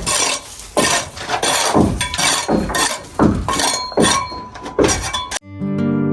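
Repeated hammer strikes with a metallic clink, irregular at roughly two a second. About five seconds in they stop abruptly and acoustic guitar music starts.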